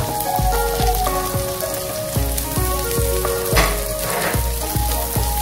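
Onion, garlic, ginger and chili sizzling steadily in hot oil in a pan, under background music with a steady beat.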